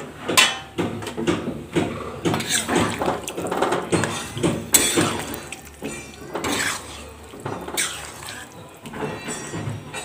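A spoon stirring a watery vegetable curry in a cooking pan, knocking and scraping against the pan in irregular strokes.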